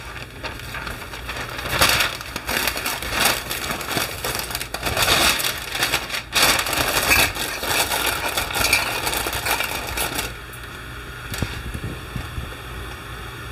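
A sheet of butter paper (baking paper) crinkling and rustling as it is handled by hand and spread and tucked over a tray; the crinkling stops about ten seconds in.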